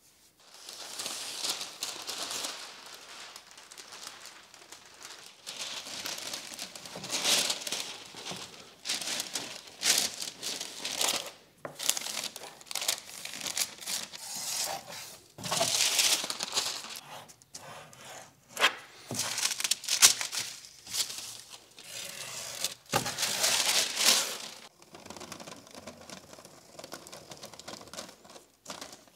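A large sheet of thin paper rustling and crinkling in irregular bursts as it is handled, smoothed and pressed over a wooden frame for tracing, with one sharp tap a little before the three-quarter mark.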